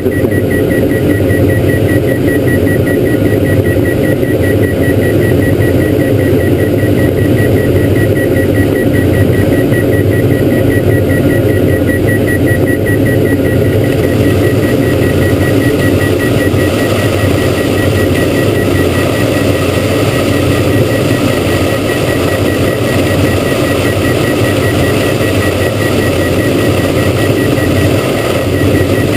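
Cabin noise of a Diamond DA42 twin-engine light aircraft in flight: both engines and propellers droning steadily, with a thin high tone throughout. A hiss of rain on the canopy grows louder about halfway through.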